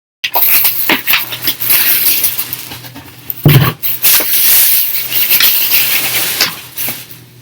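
Packaging of a mini fridge being handled and pulled away: loud rustling and scraping with sharp clicks, and one heavy thump about three and a half seconds in.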